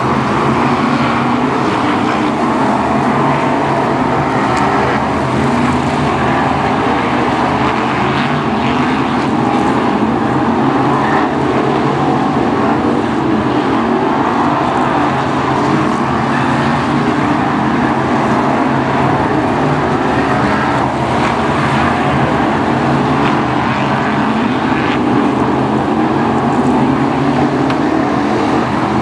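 A pack of BriSCA F1 stock cars racing on a tarmac oval. Their V8 engines run together in one loud, continuous din, with no single car standing out.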